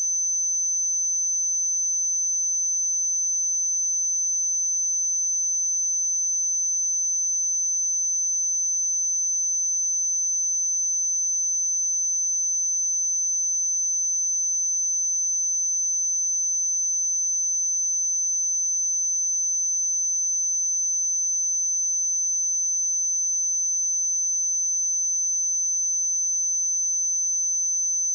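A single steady, high-pitched pure tone that holds one pitch at an even level throughout.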